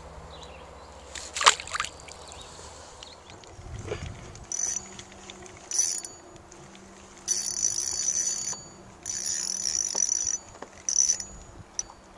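A fishing reel whirring with a high, ringing tone in repeated bursts of up to about a second, starting a few seconds in, as a good-sized fish pulls on the line. A single sharp knock comes earlier, about a second and a half in.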